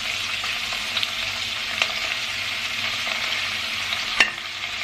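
Garlic, carrots and salmon frying in olive oil in a pan: a steady sizzle with a few clicks of a utensil against the pan, the loudest about four seconds in.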